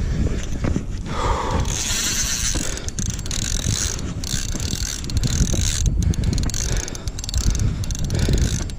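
Penn Battle 5000 spinning reel being cranked against a hooked striped bass: the gears and rotor whir and click in uneven spells as line is reeled in.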